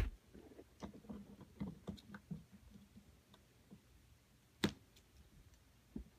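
Scattered small clicks and taps of hands working on the opened coffee maker's plastic parts and wires, with one sharp knock about four and a half seconds in.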